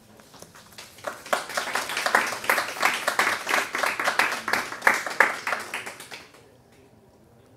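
Small audience clapping. The clapping starts about a second in and dies away after about five seconds.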